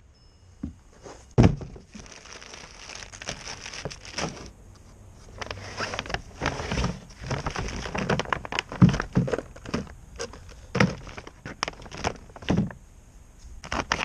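Clear plastic packaging crinkling and rustling as a new motorcycle handlebar is pulled from its bag and box. Irregular clicks and knocks come from handling it, with one loud thump about a second and a half in.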